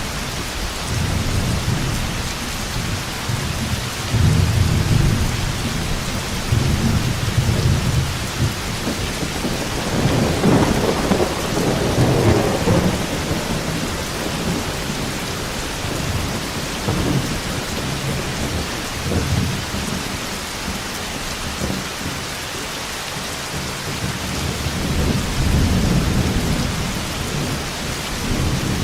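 Thunderstorm: steady heavy rain with rolling thunder, low rumbles swelling and fading several times, the biggest peal about ten seconds in.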